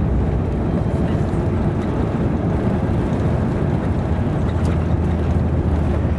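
Airbus A350 cabin noise during takeoff: the Rolls-Royce Trent XWB engines at takeoff power give a loud, steady noise through the fuselage as the aircraft leaves the runway. A low hum joins about four and a half seconds in.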